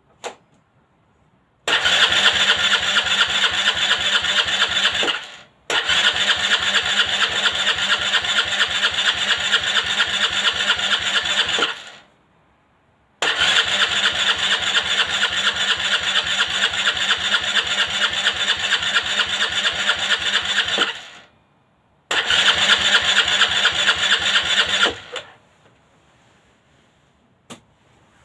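Aprilia Leonardo 125 scooter's electric starter cranking its single-cylinder engine in four long attempts of steady, rapid chugging, each cut off after a few seconds without the engine catching, as is typical of an engine left unused for a long time. A short click comes at the start and another near the end.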